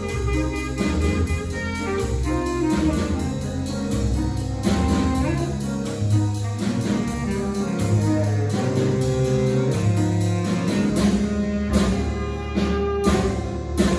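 School jazz band playing live: piano, saxophones and drum kit over a low bass line, with a steady cymbal beat. Drum hits and cymbal crashes grow stronger near the end.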